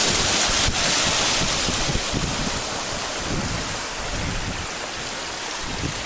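Strong wind buffeting the microphone over the hiss of rough, choppy sea surf. The surf hiss is loudest for about the first two seconds, then eases a little.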